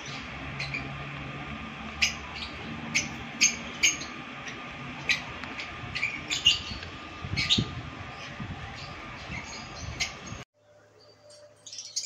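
Lovebirds giving short, sharp chirps at irregular intervals, about a dozen in ten seconds. The sound then drops away to a few faint chirps near the end.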